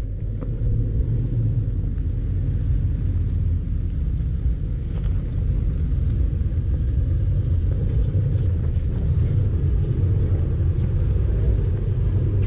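Toyota 4Runner's V6 engine running at low revs as the truck crawls down a steep dirt slope and passes close by: a steady low rumble, with a few faint crackles of tyres on dirt and stones.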